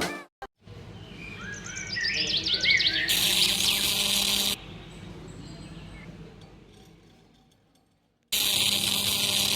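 Birds chirping in quick rising and falling calls, then a steady high hiss that starts and stops abruptly; it cuts out, fades to near silence, and cuts back in near the end.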